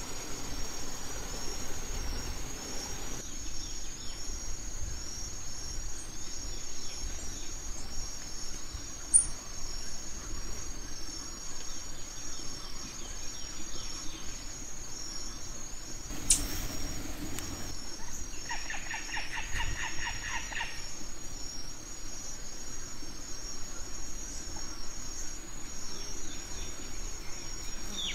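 Forest ambience: insects trill steadily in a high, pulsing chorus. About two-thirds of the way through, a bird gives a quick run of rapidly repeated notes lasting a couple of seconds.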